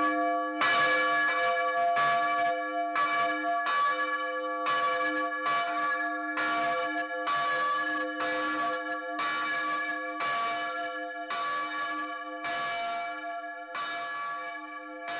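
Church bell struck over and over by its clapper, about three strokes every two seconds, its notes ringing on between strokes, as the bell is rocked back and forth on its wheel with the stay bouncing against the slider.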